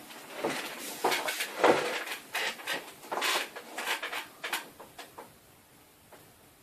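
Handling noise from a tablet being taken apart: a quick run of clicks, taps and scrapes of plastic parts and tools during the first four or five seconds, then only faint handling.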